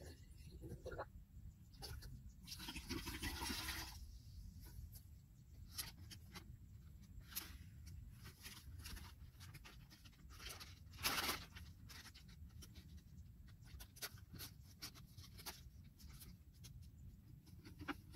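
Plastic pesticide bottles, sachets and packets being handled: faint scattered clicks and rustles, with louder rustling spells about three seconds in and again about eleven seconds in, over a faint low rumble.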